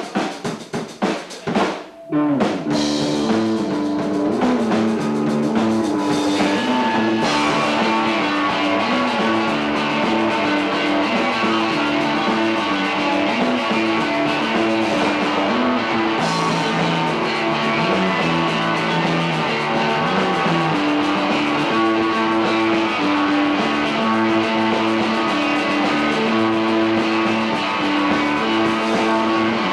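A live rock band with electric guitars, bass and drum kit. It opens with a few separate loud hits, then about two seconds in the whole band comes in and plays a steady, repeating riff.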